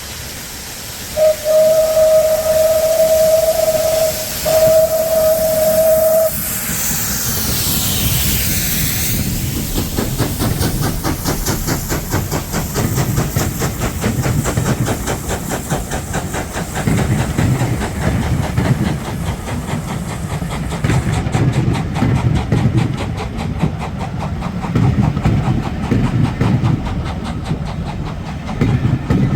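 Steam locomotive whistle sounding two blasts, a longer one and then a shorter one, followed by a rush of steam hiss. After that comes the steady rhythmic noise of the steam train running.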